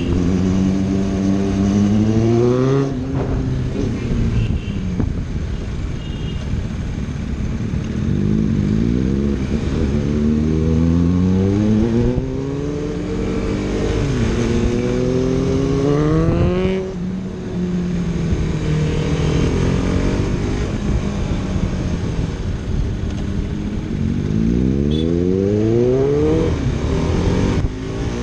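Superbike engine revving hard through an aftermarket full-system exhaust, with several steep climbs in engine pitch. Each climb ends in a sudden drop, about four times over the stretch.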